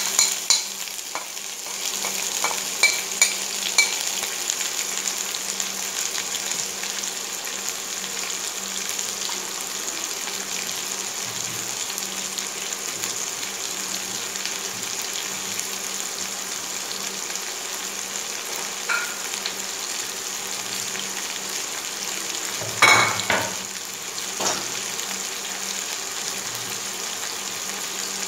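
Diced onion, red pepper and green peppers sizzling in oil in a nonstick frying pan, a steady hiss. In the first few seconds a few sharp clicks come as the last pieces are scraped off a plastic cutting board with a knife. About three-quarters of the way through there is one louder knock, then a fainter one.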